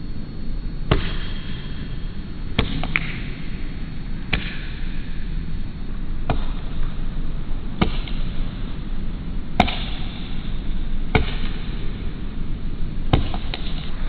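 Male pileated woodpecker chiselling into a tree trunk, excavating a large cavity that is taken for a nest hole, slowed to one-fifth speed. About nine strikes, one every one and a half to two seconds, each a sharp knock with a short ringing tail, the loudest near the middle, over a steady low rumble.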